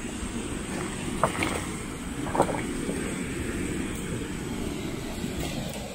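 Water rushing through a weir's sluice gates, a steady low rumble, with two brief sharper sounds about one and two and a half seconds in.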